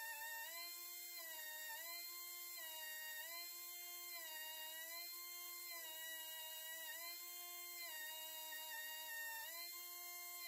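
Pencil die grinder with a small abrasive stone running as a steady high whine over a hiss, grinding the jaws of a four-jaw lathe chuck true. Its pitch sags briefly and recovers about every second and a half as the stone bites the jaw.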